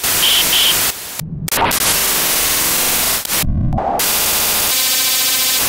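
Loud static and glitch noise, hissing across the whole range and cutting in and out abruptly, with two short high beeps near the start and a low thud about three and a half seconds in.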